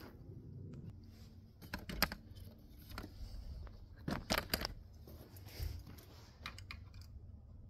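Scattered light clicks and clinks of small metal parts being handled, with a quick pair about four seconds in the loudest.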